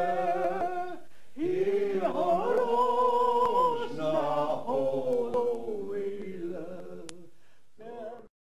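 An elderly woman singing a Gaelic song unaccompanied, in phrases with long held notes, trailing away near the end with one short last phrase before it cuts off.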